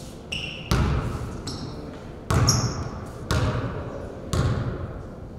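A basketball bounced on a gym floor four times, about a second apart. Sneakers squeak briefly on the court three times in between.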